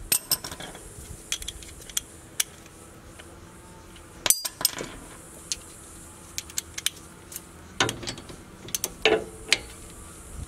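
Metal hand tools clinking and a socket ratchet wrench clicking in irregular spurts, with a sharp metal clank about four seconds in.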